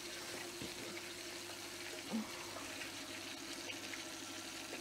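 Chicken deep-frying in hot oil: a steady bubbling hiss.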